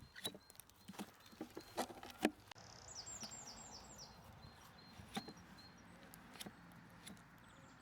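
Scattered sharp taps and knocks around a horse's hoof, several in quick succession at first and then a few spaced out. A short run of high chirps comes a little under three seconds in.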